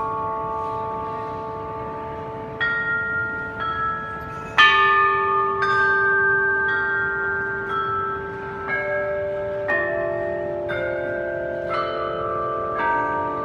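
Bells struck one at a time, about once a second, each at a different pitch, their tones ringing on and overlapping. The strike about four and a half seconds in is the loudest.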